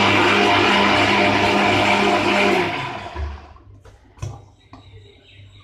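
Electric mixer grinder running at full speed, grinding green chillies, herbs, ginger and garlic into a wet masala paste. It is switched off about two and a half seconds in and winds down over about a second, then a few short knocks as the jar is lifted off the base.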